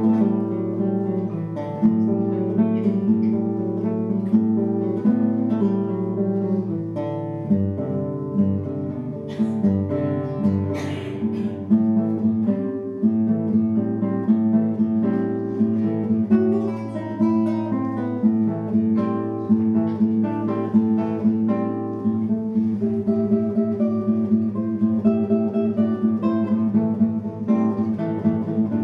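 Solo classical guitar playing: quick plucked notes over a sustained low bass note, with a few sharp, bright strokes about nine to eleven seconds in.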